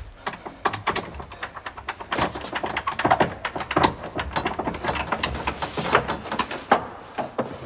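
Irregular metallic clicking and rattling, several clicks a second: a door lock being picked with metal tools.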